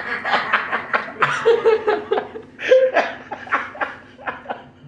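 People laughing, with bursts of chuckling and snickering in quick short pulses that die away near the end.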